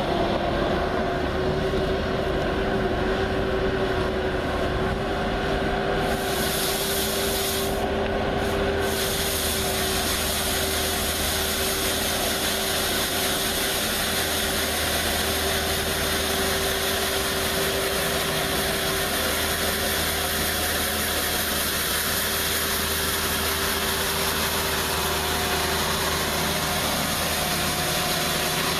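Skid steer engine running at a steady throttle while driving a hydraulic sweeper broom. A steady hiss joins about six seconds in and carries on, dropping out briefly near the ninth second.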